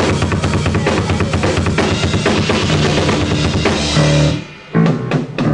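Live rock band playing loud, with the drum kit's kick and snare the most prominent; the playing drops out briefly about four and a half seconds in and starts again.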